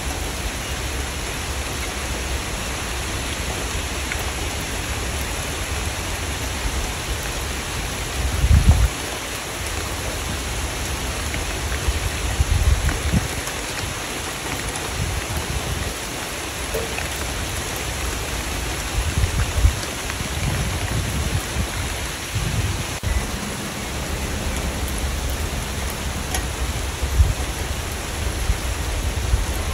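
Steady rain falling, with several brief low rumbles rising out of it at intervals.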